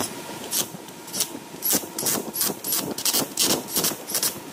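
Repeated rasping scrapes of a hand tool worked over a part, about two to three strokes a second, coming closer together in the middle.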